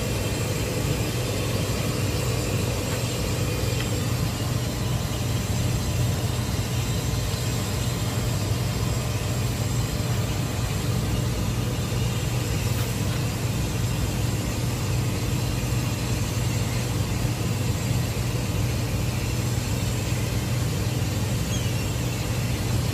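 Steady low hum of running machinery, unbroken and even in level, with no distinct knocks standing out.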